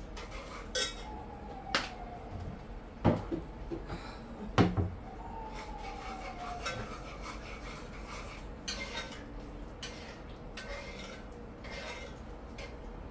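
Kitchen utensils knocking and clinking against a pot and dishes: a few sharp knocks, the loudest about four and a half seconds in, then lighter scattered clinks.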